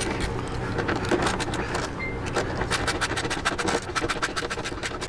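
Hand ratchet clicking in quick runs as the 10 mm nut on a lower fairing's bottom clamp is tightened by hand.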